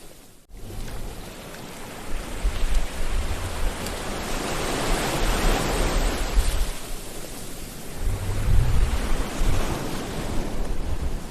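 Sea waves washing in, a steady rushing that swells and eases every few seconds, with a brief dropout about half a second in and low rumbling surges near the end.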